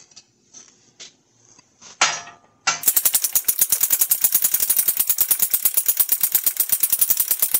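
A few light knocks of metal parts being set into a shop press, with a sharper clank about two seconds in. About three seconds in, a fast, even clicking rhythm starts, some ten clicks a second, and keeps going.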